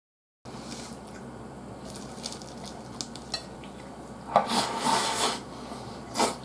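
Chopsticks clicking lightly against a nearly empty plate while the last scraps of glass noodles are picked up, then a loud slurp at the mouth a little after halfway and a shorter one near the end.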